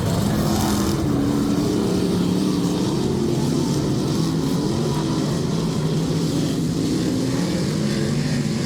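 Several dirt-track race cars' engines running together, their pitches rising and falling and overlapping as the cars lap the oval.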